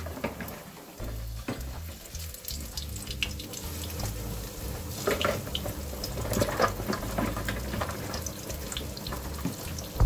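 Floured fish fillets shallow-frying in hot oil in a pan: a steady sizzle with many small crackling pops of spattering oil.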